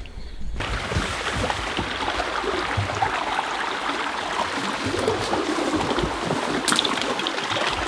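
A small forest creek running, a steady rushing of water, with a few brief crackles of brush and twigs as someone pushes through the undergrowth.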